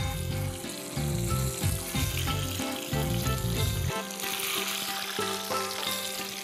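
A rice-paper spring roll deep-frying in hot oil in a small saucepan: a steady sizzle of bubbling oil, with background music underneath.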